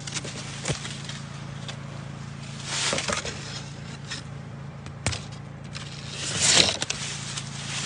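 Dry sugarcane leaves rustling and scraping as someone pushes through the cane, in several short brushing bursts, the loudest one near the end, over a steady low hum.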